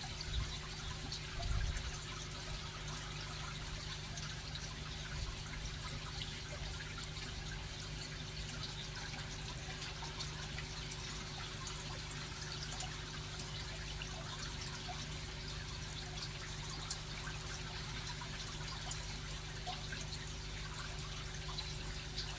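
Steady trickle of running water over a low steady hum, with a few faint drips and small splashes as a wet hand net is lifted over a shallow tub of water.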